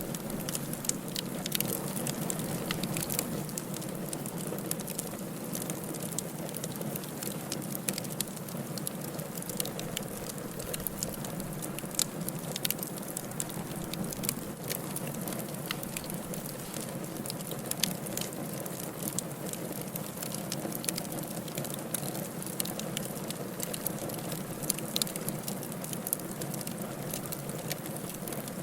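Firewood burning in a fireplace: a steady low hiss of flame with frequent irregular sharp crackles and pops from the burning logs.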